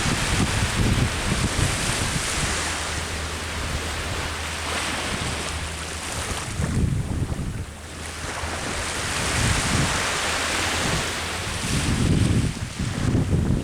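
Ocean surf breaking and washing on the shore in swelling surges, with a brief lull about seven seconds in. Wind buffets the microphone with an irregular low rumble.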